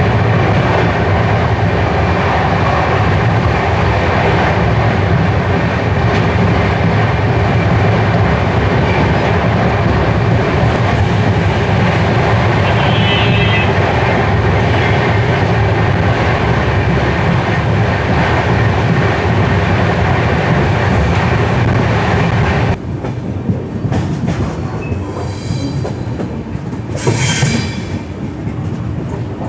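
Express passenger train running at speed: a loud, steady rumble and rattle of the coaches on the track. About three-quarters of the way through, the sound drops abruptly to a quieter ride, with a few high-pitched wheel squeals near the end.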